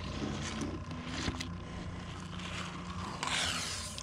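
Boat motor running steadily at a low idle, with a brief scraping rustle about three seconds in.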